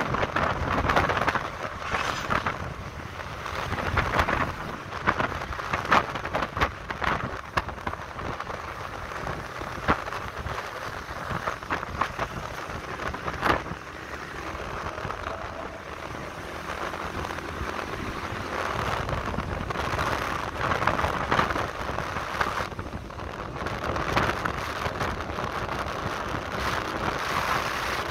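Wind buffeting the microphone on a moving motorcycle, a gusty rumble and hiss with road noise. It eases for a few seconds around the middle, then builds again.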